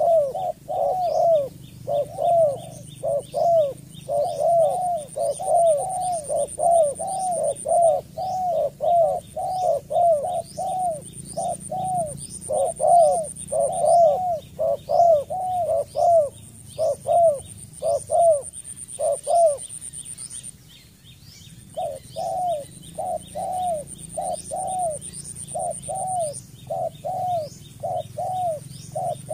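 Spotted dove calling in a fast run of short arched coo notes, two or three a second. It breaks off for about a second and a half near two-thirds through, then starts again. A thin high whine comes and goes behind it.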